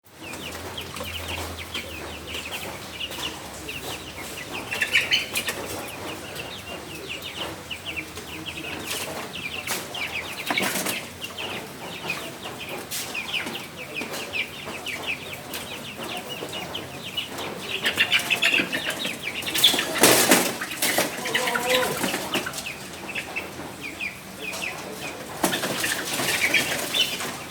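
Chickens fighting: wings flapping in repeated flurries, loudest about twenty seconds in, with clucking and a short call. Underneath runs a steady patter of rain.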